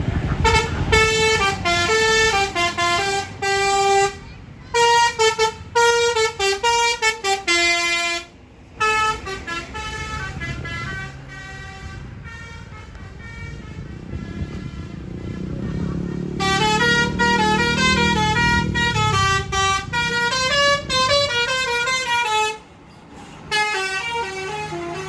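A bus's multi-tone 'basuri' air horn (telolet horn) plays a tune in repeated phrases of quick stepping notes. Brief gaps separate the phrases, and partway through, the bus engine rumbles louder under the horn.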